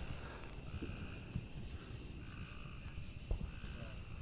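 A steady, high chorus of night insects trilling, with a few faint knocks.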